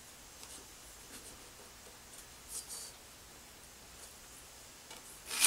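Faint pencil scratching as layout lines are drawn on a planed white ash board, in a few short, scattered strokes. A brief louder sound comes right at the very end.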